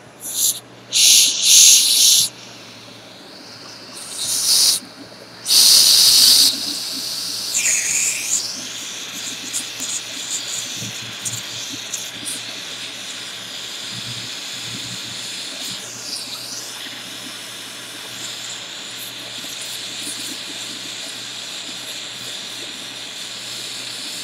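Jeweler's soldering torch hissing. There are three short, loud bursts of hiss in the first six seconds, then a steady flame hiss as the torch heats a joint on the sterling silver pendant so the solder will flow.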